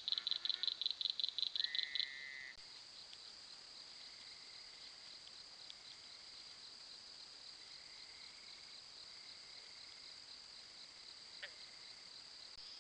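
Night chorus of calling frogs and insects. For about the first two seconds a loud, rapid, high pulsing call dominates; it gives way abruptly to a quieter, steady high-pitched cricket-like trill, with a single sharp click near the end.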